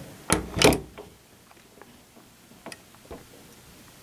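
Two sharp knocks close together near the start, then two lighter clicks, as wood-and-metal BB rifles are set down and shifted on a hard tabletop.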